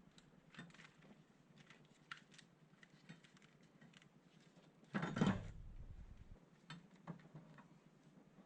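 Scattered light clicks and taps, with one louder knock and low rumble about five seconds in that lasts a little over a second.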